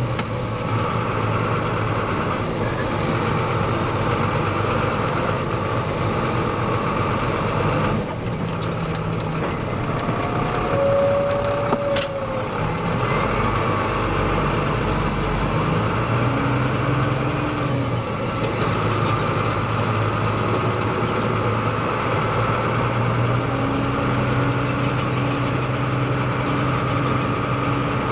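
Fendt Favorit 822 tractor's six-cylinder turbodiesel running steadily, with a turbocharger whistle over the engine's drone. The engine pitch shifts a little about a third of the way in and again past the middle.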